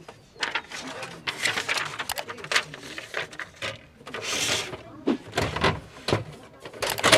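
A person's voice, mixed with short clicks and knocks, and a brief hiss about four seconds in.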